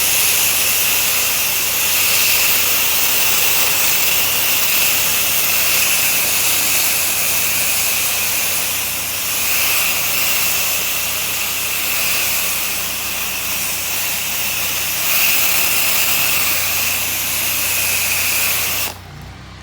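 Pressure washer spray hissing steadily from the wand, cutting off suddenly near the end, over a steady low hum of the machine running.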